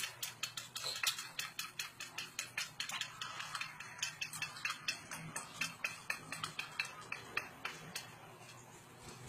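Metal utensils clinking and scraping against a small stainless steel bowl as a toddler eats: quick, uneven clicks, several a second, thinning out near the end.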